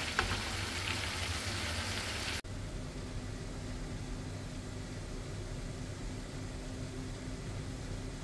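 Food sizzling as it fries in a pan, with a utensil click near the start. After about two seconds it cuts off abruptly to a steady low hum.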